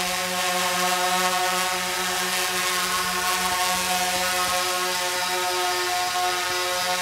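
DJI Phantom 3 Standard quadcopter's propellers and motors buzzing with a steady whine as it descends close overhead to land under automatic return-to-home.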